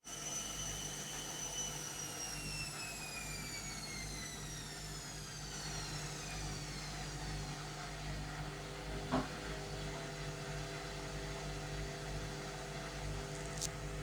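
Indesit Innex washing machine in its spin cycle, the motor's whine falling steadily in pitch over about seven seconds as the drum slows. A single knock comes about nine seconds in, then a steadier, lower hum with a brief click near the end.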